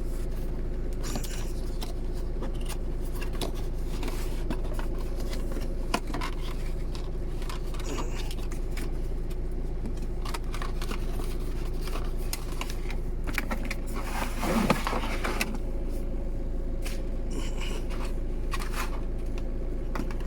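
Cardboard box and plastic packaging being handled and opened: scattered rustles, scrapes and clicks, busiest about two-thirds of the way in, over a steady low hum.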